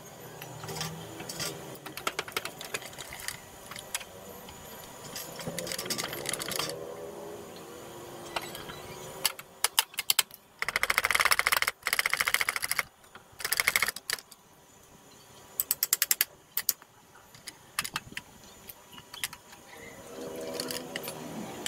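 Socket ratchet wrench clicking in quick bursts, the longest about two seconds, as nuts are worked loose during dismantling. Scattered single tool clicks and knocks come before and after.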